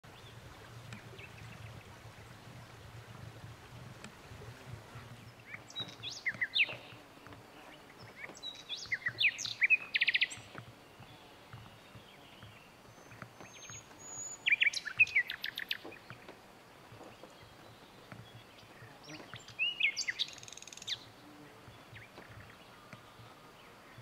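Common nightingale (Luscinia megarhynchos megarhynchos) singing. It gives four separate song phrases of sweeping whistles and rapid repeated notes, each a second or two long, with pauses of a few seconds between them.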